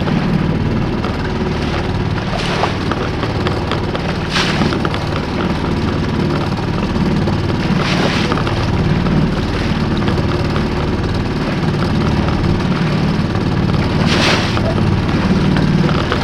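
Fishing boat's outboard motor running steadily at trolling speed, about 3 miles an hour. A few short hisses come over the drone.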